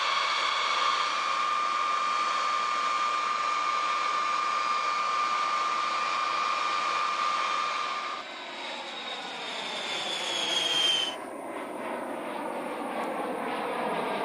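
Jet aircraft noise: a steady rushing sound with a high whine, which changes abruptly about eight seconds in to a jet passing by, its whine falling in pitch.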